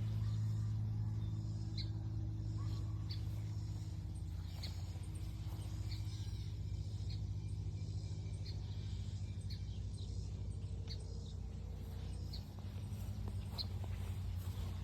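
A small bird giving short, high chirps every second or so, over a steady low hum.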